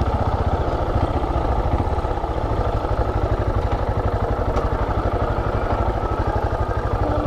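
Motorcycle engine running steadily while being ridden, with a rapid, even beat of firing pulses.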